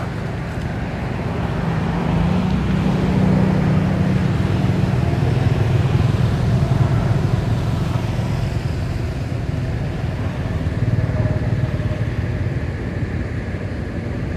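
Low, steady motor-vehicle engine drone, rising over the first few seconds and easing off slightly later.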